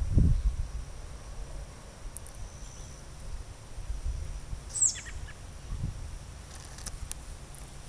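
Outdoor ambience: low rumbles on the microphone, loudest right at the start, a faint steady high insect whine, and one short falling bird chirp about five seconds in.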